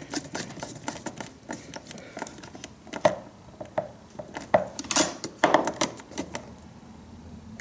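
Screwdriver working the hot-wire terminal screw of an L5-30 twist-lock receptacle on a generator's control panel: irregular small metal clicks and taps, with a few sharper ringing ones in the middle.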